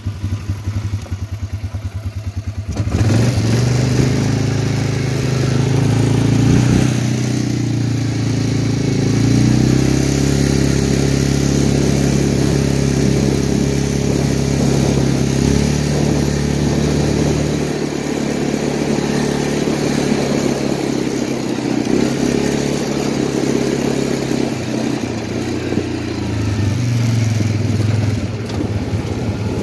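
Can-Am Outlander 400 ATV's single-cylinder four-stroke engine idling with an even putter, then throttled up about three seconds in and running louder as the ATV is ridden, its pitch rising and falling with the throttle.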